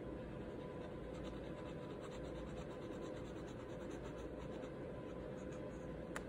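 Faint scratching of a pen drawing on paper in quick short strokes, over a steady low hum, with two small sharp clicks near the end.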